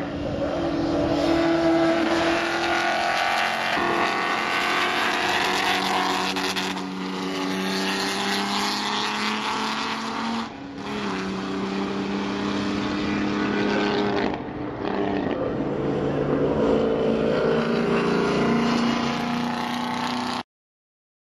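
Engines of vintage pre-war race cars running hard on the track, their pitch changing several times. The sound cuts off abruptly near the end.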